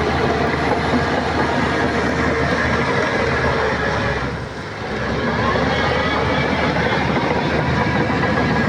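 Shantui bulldozer's diesel engine running with steady mechanical clatter, dipping briefly in loudness about halfway through.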